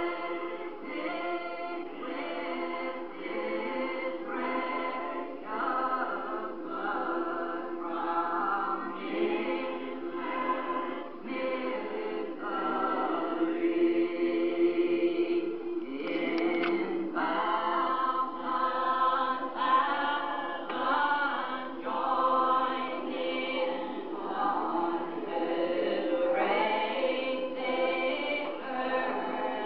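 A Primitive Baptist congregation singing a hymn unaccompanied, in slow notes each held about a second.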